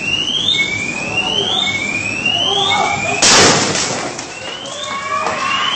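A siren-like rising whoop repeats about once a second, and about three seconds in a firecracker goes off with a single loud bang.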